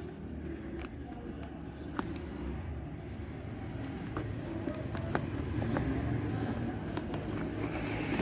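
Scattered clicks and taps of a keypad phone's box and packaging being handled during unboxing, over a steady low rumble.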